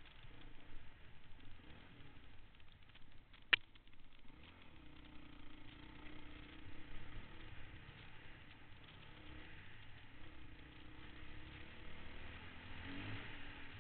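Honda dirt bike engine running faintly while riding a dirt trail, its pitch wavering a little as the throttle changes, with one sharp click about three and a half seconds in.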